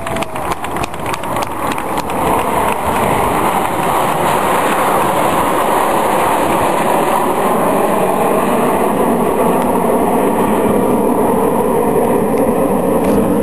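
A formation of nine Canadair CT-114 Tutor jets, each with a single turbojet engine, flying past: a loud, steady jet rumble that builds over the first couple of seconds and then holds.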